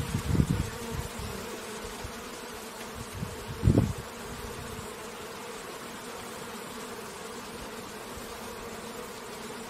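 Bees at a beehive buzzing, a steady dense hum. A few low thumps come in the first seconds, the loudest about four seconds in.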